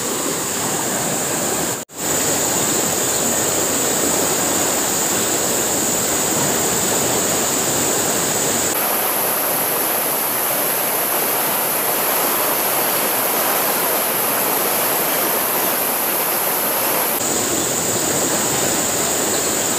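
Fast-flowing river water rushing over a shallow bed, a steady noise. Above it is a steady high-pitched hum that jumps higher about nine seconds in and drops back about seventeen seconds in. The sound cuts out for a moment about two seconds in.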